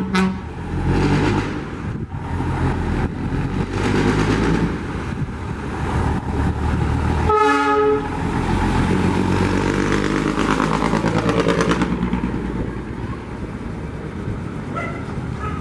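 FNM truck's diesel engine running and being revved, with a short horn blast about seven seconds in.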